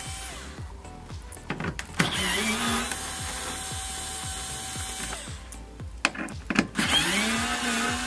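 Cordless electric screwdriver with an 8 mm socket driving out metal screws from a car door's inner panel: it runs twice, each time spinning up to a steady whine for about a second, with clicks as the bit is set on the screw just before each run. Background music with a steady beat plays underneath.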